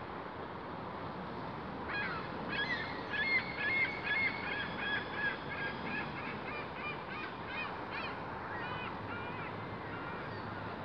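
Birds calling in a quick string of short, repeated calls from about two seconds in until near nine seconds, over a steady rushing noise.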